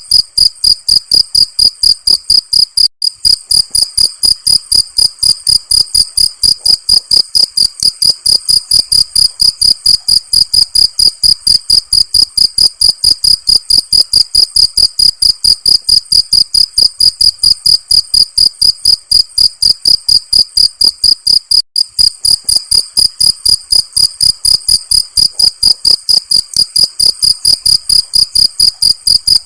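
Cricket chirping in a steady, even rhythm of about three high-pitched chirps a second, with two very brief breaks.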